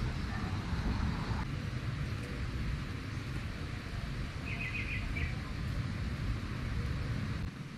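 A steady low rumble, with a bird giving a quick run of about five high chirps about halfway through.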